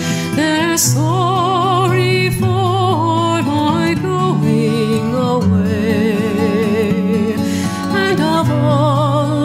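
Background music: a slow song, a voice holding long notes with vibrato over sustained bass notes.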